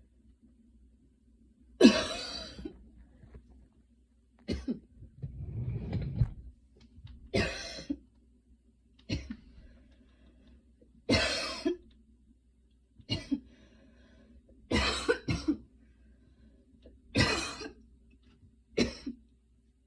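A woman coughing after a fast run: about ten short single coughs, one every couple of seconds, with two close together past the middle.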